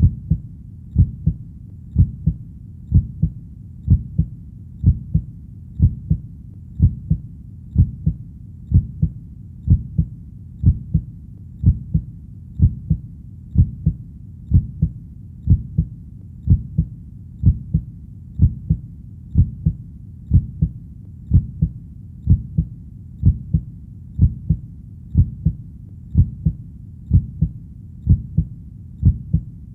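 A steady heartbeat, each beat a double lub-dub thump, at about one beat a second over a low, steady background noise.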